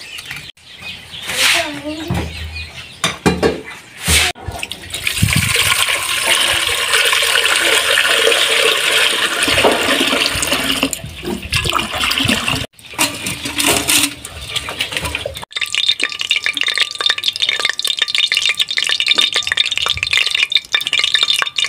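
Water running and splashing as a steady hiss, with a few knocks in the first seconds and abrupt breaks where the sound cuts off and restarts.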